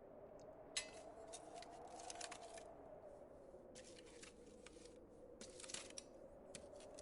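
Kindling and paper being handled to lay a fire: faint crackling and rustling in several short spells, over a low steady hum.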